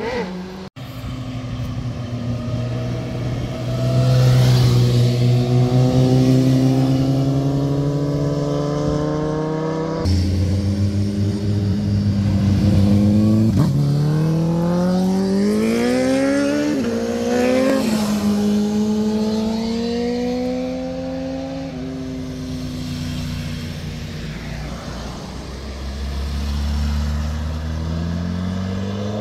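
Motorcycle engines running through tight bends, several bikes one after another, each rising in pitch as it accelerates out of the corner. The steepest climb comes in the middle, where two engine notes rise together. The sound breaks off abruptly twice, about a second in and about ten seconds in.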